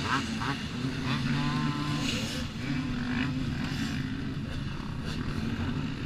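Dirt bike engines idling steadily together, with people calling out over them in the first couple of seconds.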